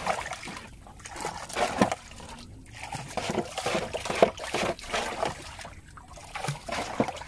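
Water being bailed from the bottom of a small boat with a plastic jug: repeated scoops, sloshing and trickling, with splashes as the water is dumped, coming in irregular bursts.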